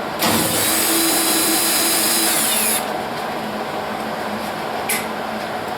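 Handheld electric power tool running for about two and a half seconds, then its whine falling away as the motor spins down after release. A short click follows near the end.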